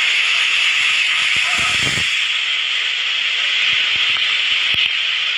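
Typhoon wind and driving rain making a steady, loud hiss, with a brief low rumble about one and a half seconds in.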